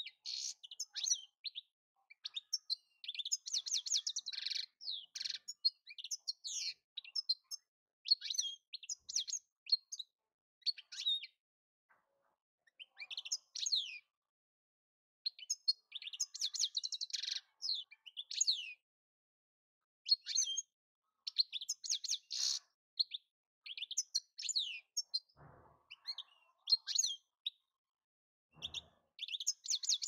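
European goldfinch singing: fast twittering phrases with rapid trills, broken by short pauses.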